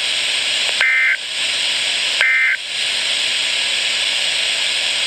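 Weather radio static hiss broken by two short two-tone data bursts, about one and two seconds in, roughly a second and a half apart: the SAME end-of-message codes that close an Emergency Alert System weather radio broadcast.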